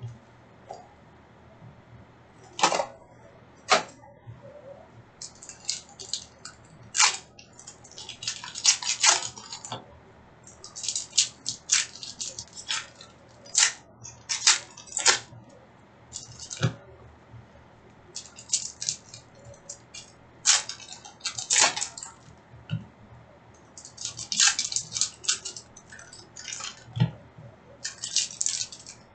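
Hockey card packs being opened: wrappers crinkling and tearing in irregular crackly bursts.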